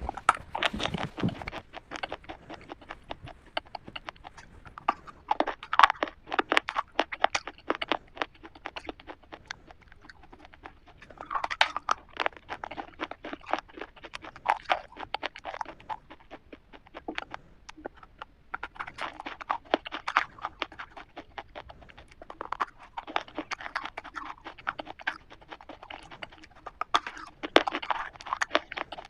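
Crunching of a black KitKat chocolate wafer bar, bitten and chewed in bouts of rapid crisp crackles with short quieter pauses between.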